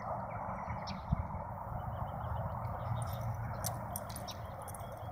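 Steady outdoor background noise with a single faint knock about a second in and a few faint, short high ticks in the second half.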